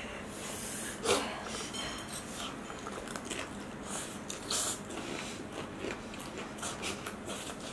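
Two people slurping and chewing noodles, with short slurps and mouth noises scattered through.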